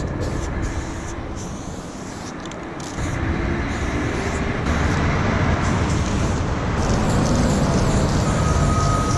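Traffic rumbling on the highway overhead, growing louder about three seconds in, with an aerosol spray-paint can hissing on and off.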